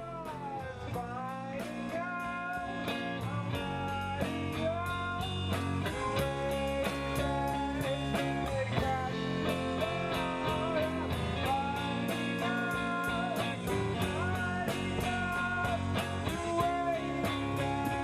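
Rock music with guitar over bass and a steady drum beat, the lead melody sliding up and down in pitch. It fades in over the first couple of seconds.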